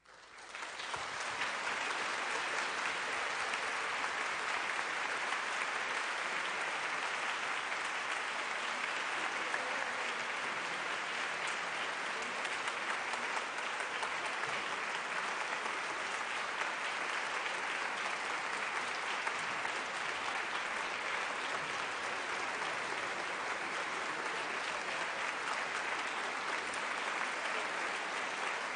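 Audience applause that swells up out of silence within about a second and a half, then holds steady as dense clapping.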